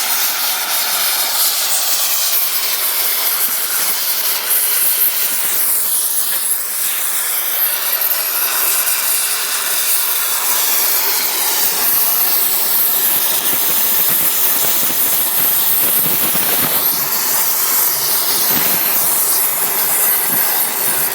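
Multiplaz portable plasma torch running with a steady, loud hiss.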